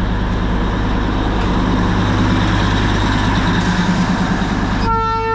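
Steady low engine rumble in slow road traffic, with a horn sounding near the end.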